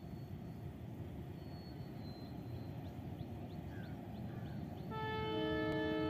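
Wind rumbling on the microphone with a few faint, short bird chirps. About five seconds in, a louder held chord of several steady tones begins and holds without changing pitch.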